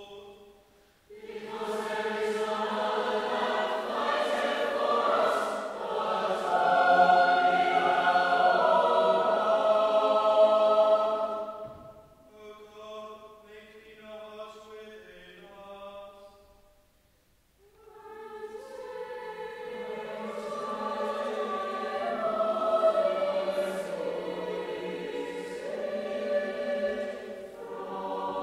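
Chapel choir of children's and adult voices singing: a loud full passage, then a quieter, thinner phrase after about eleven seconds, a brief pause near the middle, and the full choir coming back in.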